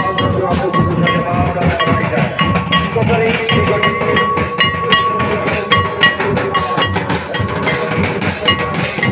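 Traditional drums, a two-headed barrel hand drum and a large bass drum, beating a fast, dense rhythm, with a steady high tone held over the beat.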